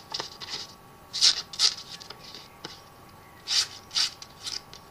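A few brief, irregular rustles and rubs from hands handling a folding knife.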